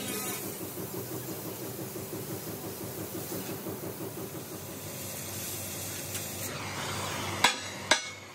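Oxy-fuel cutting torch hissing steadily as it cuts along a weld seam in the steel plate of an excavator bucket. Near the end come three sharp hammer blows on the steel plate, about half a second apart.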